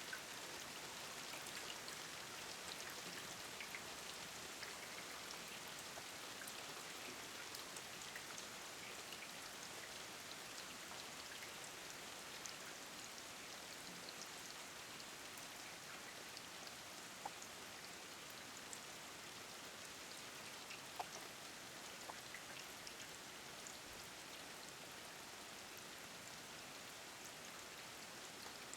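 Steady rain falling, an even patter with a scatter of single drops ticking louder now and then.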